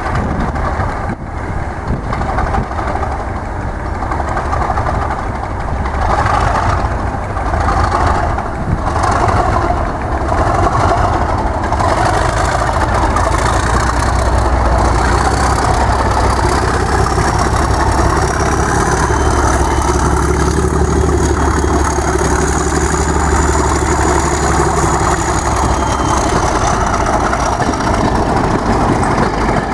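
Class 37 diesel locomotive 37425's English Electric engine running under power as it moves off with the test train, the low engine sound growing stronger about halfway through. A high whistle rises and then falls in pitch over the second half.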